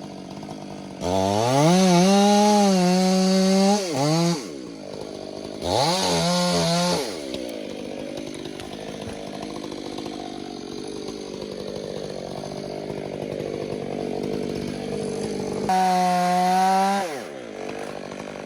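Two-stroke chainsaw revved up to full throttle three times, each rev rising in pitch, holding and then dropping back, and running at a lower, steady level in between.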